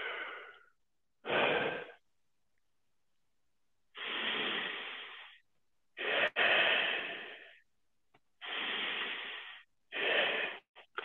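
A man taking deep chest breaths, heard as about six rushes of air in and out with gaps between them.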